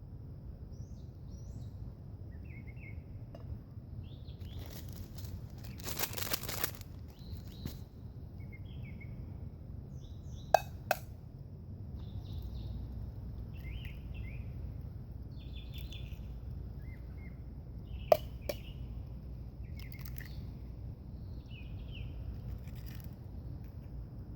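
Small birds chirping now and then over steady low outdoor background noise. A short rustle comes about six seconds in, and two sharp clinks, the loudest sounds, fall about seven seconds apart.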